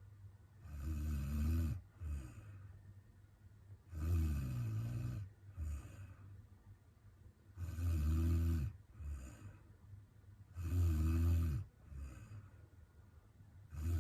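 A woman snoring in her sleep: four loud snores about three seconds apart, with a fifth starting at the very end, each followed by a shorter, softer breath sound.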